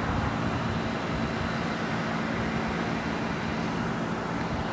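Distant freight train rolling past: a steady rumble with a low hum.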